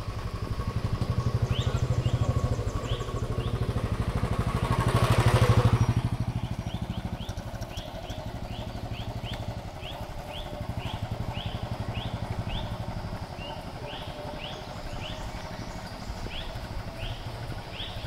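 A motorcycle engine passing, growing louder to a peak about five seconds in and then fading as it moves off down the road. Short rising bird chirps repeat through it, one or two a second.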